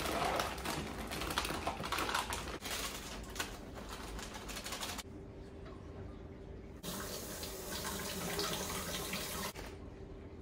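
Kitchen work noise: a running tap and light clicking and clattering, changing abruptly a few times.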